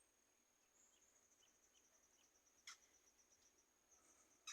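Faint, steady, high-pitched insect trill, with one sharp tap about two and a half seconds in.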